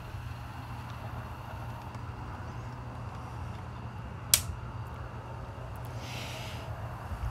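A single sharp click about four seconds in, over a steady low hum, with a brief soft hiss near the end.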